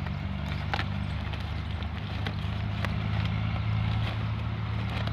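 A steady low engine hum runs throughout, with scattered crinkles and rustles from a plastic sack being handled.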